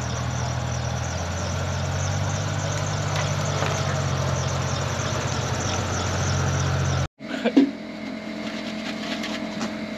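A vehicle engine idling steadily. About seven seconds in it cuts out abruptly, and a different steady, higher-pitched hum follows with a couple of short knocks.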